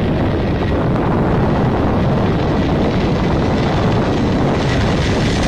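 Four Ivchenko-Progress D-18T turbofan engines of an Antonov An-124 Ruslan running at high power as the aircraft rolls along the runway for takeoff: a loud, steady, deep jet noise. Near the end, a higher whine and hiss swell in.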